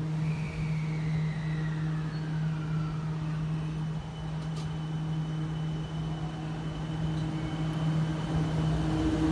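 JR West 223 series electric multiple unit pulling out of a station, a steady low hum underneath as a faint electric whine rises in pitch once it begins to move, a few seconds before the end. A tone falls slowly over the first three seconds.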